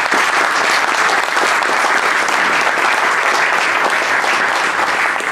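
Audience applauding, a loud, steady clapping of many hands.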